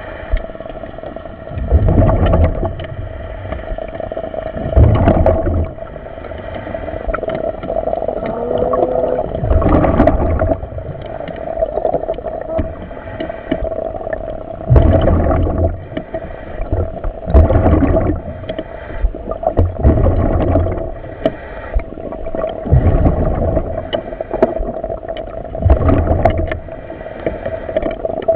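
Surface-supplied commercial diving helmet heard over the dive radio: the diver's breathing and exhaust bubbles rush and gurgle in regular surges every few seconds over a steady hum.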